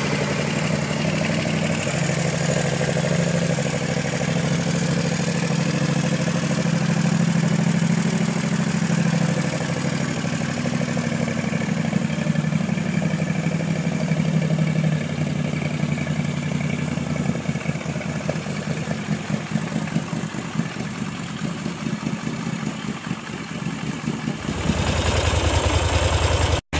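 Moto Guzzi Breva 1200's air-cooled V-twin idling steadily. About two seconds before the end the sound switches to another recording of the engine running, louder and deeper.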